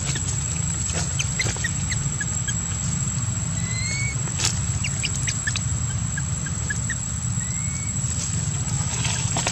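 Steady low rumble of outdoor background noise with a constant high whine, scattered faint short chirps, and a few brief squeaky rising calls.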